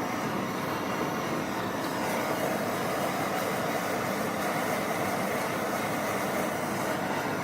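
Hand-held propane torch flame burning with a steady, even rushing noise while heating a steel bolt-cutter handle in a vise to bending heat.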